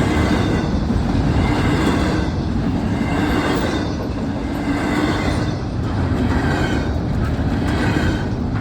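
The last cars of a long Norfolk Southern freight train rolling past close by: a steady, loud rumble of wheels on rail, with higher rail noise that rises and falls about once a second.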